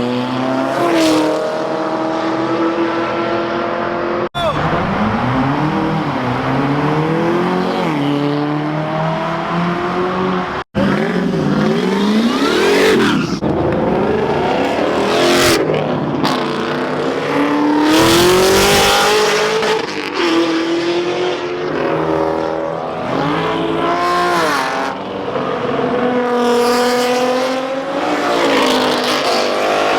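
Car engines revving and accelerating hard one after another, their pitch climbing and dropping repeatedly through gear changes. The sound breaks off for an instant twice, about four and eleven seconds in.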